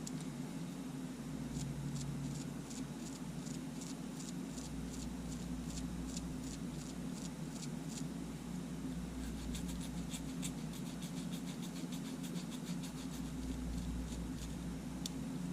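Steady low electrical hum under a series of faint, light clicks: first evenly spaced at about two or three a second, then a quicker run of clicks after the middle, and a single click near the end.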